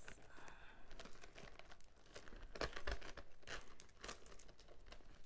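A handbag's metal chain strap being handled, its links clicking and rattling in many short, irregular ticks, with crinkling of paper packing.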